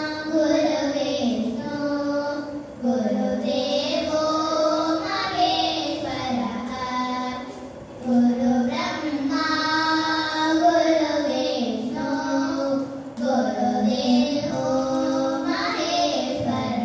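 Two young girls singing Carnatic classical vocal music together, with long held notes that glide and ornament between pitches, and short breaths between phrases.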